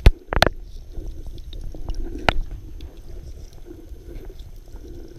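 Muffled underwater sound picked up by a waterproof camera held below the surface: a low, steady water rumble, broken by two sharp knocks right at the start and another about two seconds in.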